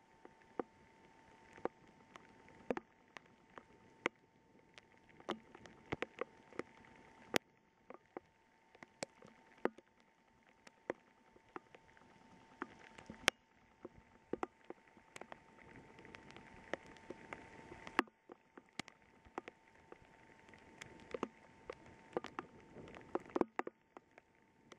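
Heavy rain: big raindrops tapping sharply and irregularly close to the microphone over a faint hiss of rain, with a faint steady tone underneath.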